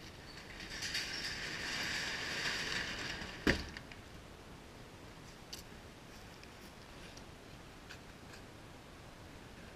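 Wooden sectional overhead garage door pulled down by hand, rattling along its tracks for about three seconds and shutting with one loud bang.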